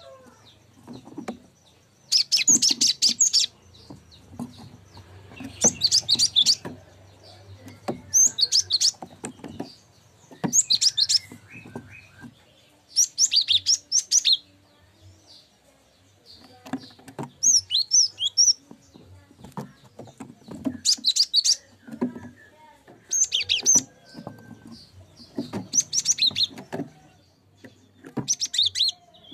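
Cinereous tit (gelatik batu) singing: about ten short bursts of rapid, high chattering notes, each about a second long, repeated every two to three seconds.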